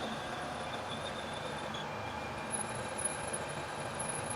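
Lathe running steadily, an even mechanical noise with a faint high whine that fades out about two seconds in.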